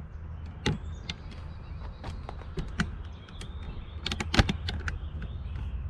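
Handling noise: irregular light clicks and taps, with a quick cluster of sharper knocks about four seconds in, over a steady low hum.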